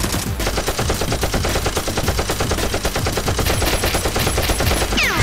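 Sustained rapid automatic gunfire, a fast unbroken machine-gun burst of many shots a second, laid over the toy-blaster fight as a sound effect. Near the end a falling whistle-like sweep starts.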